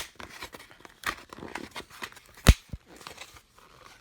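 A hard plastic driver-bit case and its packaging being handled and opened: scattered clicks and rustling, with one sharp knock about two and a half seconds in.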